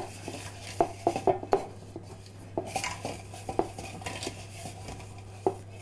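Dark metal baking tin being handled and greased with oil: irregular light clinks and knocks of metal against metal and the countertop.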